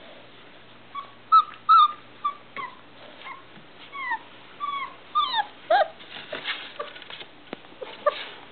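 Three-and-a-half-week-old Irish Setter puppies whimpering and yipping to be let out of their box: a string of short, high-pitched cries, many sliding down in pitch, starting about a second in. Later the cries give way mostly to short scratchy noises of paws scrabbling at the wooden box wall.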